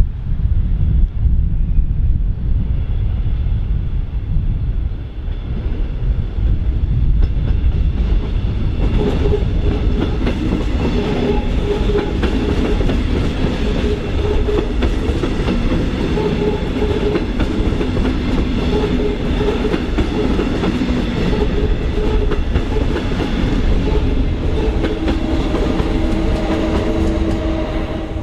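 Red double-deck regional train passing close by. A low rumble at first, then from about a third of the way in the wheels clatter over the rail joints, with a steady hum and a few held tones that go on until the end.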